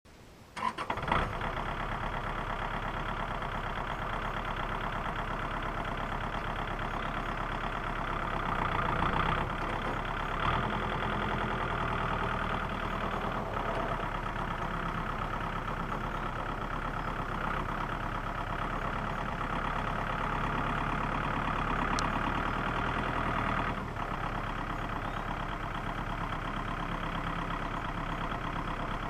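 Small tractor engine running steadily, getting a little louder for a couple of seconds about a third of the way in and easing slightly near the end.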